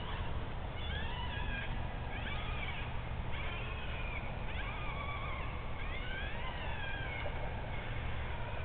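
Animal distress call played through an electronic predator caller: a string of high cries, each rising and falling in pitch, coming about once a second over a steady low hum.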